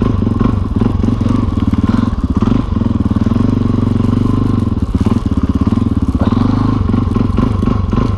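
Single-cylinder four-stroke 'thumper' engine of an old dirt bike running at low revs under way, its exhaust pulses coming one after another in a steady chug with small rises and falls in load.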